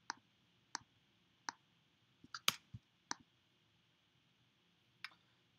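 Computer mouse clicking: about eight short, faint clicks, spaced unevenly, with a quick group of three about two and a half seconds in and a single click after a pause near the end.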